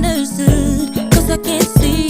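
Background R&B-style song with a sung vocal over a steady drum beat.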